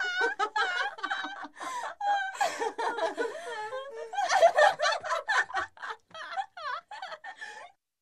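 A group of girls laughing together, several voices overlapping in rapid giggling bursts. The laughter thins to a few short, high giggles and stops just before the end.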